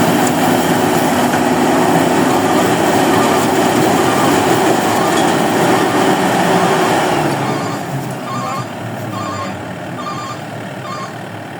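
Rice combine harvester's engine running loud and steady. About seven seconds in it drops in level, and a beeper starts sounding in an even rhythm, about one beep every half second.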